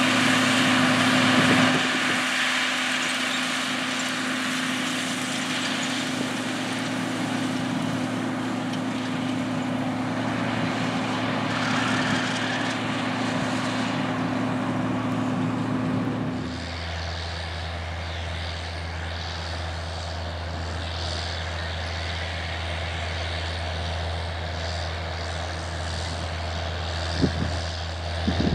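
John Deere tractor diesel engines pulling corn planters: a steady engine drone with a clear hum, then an abrupt change about two-thirds of the way in to a different, deeper steady engine drone from a John Deere four-wheel-drive tractor, with a couple of sharp clicks near the end.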